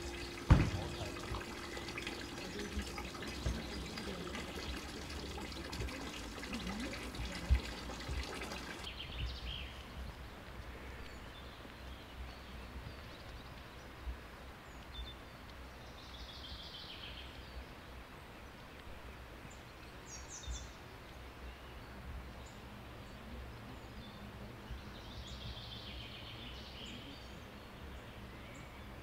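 Outdoor ambience: birds calling now and then over a low, steady rumble. A busier first stretch, with a steady hum and a few sharp knocks (the loudest about half a second in), cuts off abruptly about nine seconds in.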